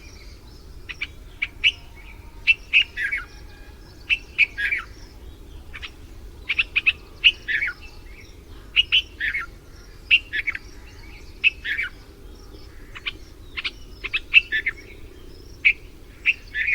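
A bulbul calling over and over: short chirpy phrases about every second, each a quick run of notes dropping in pitch, over a faint steady low background noise.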